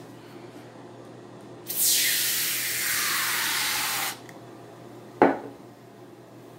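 Aerosol can spraying foam in one steady hiss of about two and a half seconds that cuts off sharply. About a second later comes a single sharp knock as the metal can is set down on the table.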